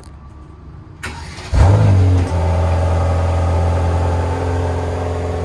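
2021 Mercedes-AMG GT Black Series' twin-turbo V8 starting: the starter turns it over about a second in, the engine catches with a sudden loud flare of revs, then settles into a steady idle.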